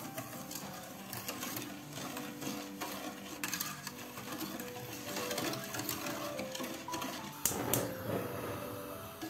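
Wire whisk beating a thin cocoa-milk-sugar mixture in an enamel pot: a rapid clatter of the wires against the pot, with a louder burst of clattering about three-quarters of the way in. Soft background music plays underneath.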